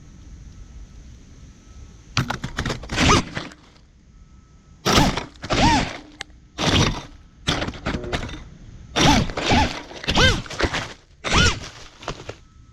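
FPV quadcopter's brushless motors revving in a series of short throttle punches, each a whine that rises in pitch and falls back. About eight bursts come from about two seconds in until near the end, with quieter hiss between them.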